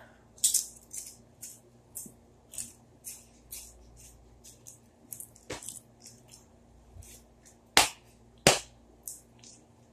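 Crisp chips being crunched while chewed close to the microphone: short, sharp crackles about two a second, with two louder snaps about eight seconds in.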